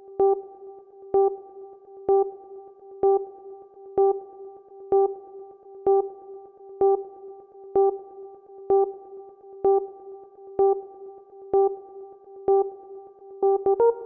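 Electronic music: a single synthesizer note repeated about once a second, each with a sharp attack. Near the end, further higher notes join in and the pattern gets busier.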